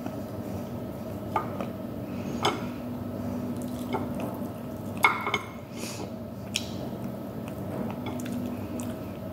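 Eating sounds: chewing and mouth smacks with a handful of sharp clicks as fingers pick food off a plate, the strongest about five seconds in, over a steady background hum.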